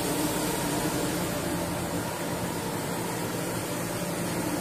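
Steady fan-like hum and hiss of machine-shop background noise, with a faint low steady tone and no distinct knocks or events.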